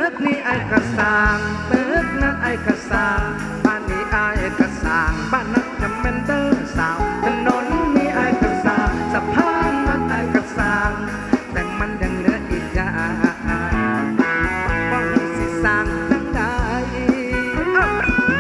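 Live band playing an instrumental passage: a drum kit keeps a steady beat under bass and a bending, wavering lead melody.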